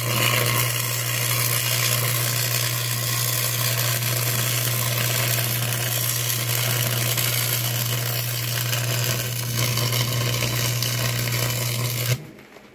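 Wire-feed (MIG) welder arc crackling steadily while laying a continuous bead on steel, with a steady low hum under it. The arc cuts off suddenly near the end.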